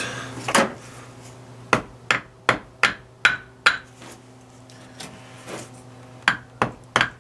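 Steel hammer striking the edge of a Dana 44 ring gear to drive it off the differential carrier: a run of about seven sharp metallic strikes with a brief ring, a pause, then three more near the end.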